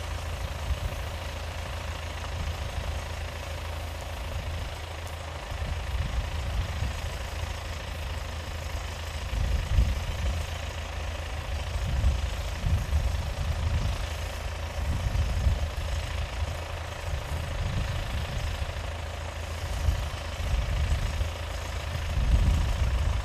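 Small engine of a motorized spray pump running steadily, feeding a hand lance that sprays a fine mist, with a gusting low rumble underneath.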